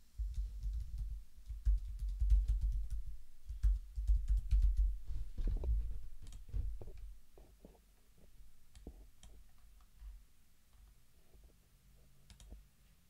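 Typing on a computer keyboard: a quick run of key clicks with dull thuds for about seven seconds, then a few scattered single clicks.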